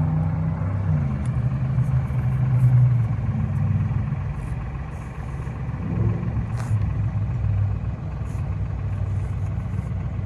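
A vehicle engine running with a low drone that shifts in pitch a few times.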